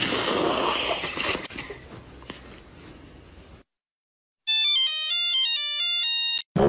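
A burst of hissing noise that fades away over a few seconds. After a short silence comes about two seconds of a ringtone-like electronic melody of rapid stepping notes.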